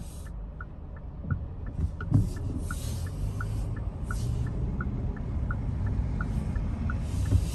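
Car turn-signal indicator ticking steadily, about three ticks a second, heard inside the cabin over the low rumble of the car rolling slowly on wet pavement, with a few brief swishes.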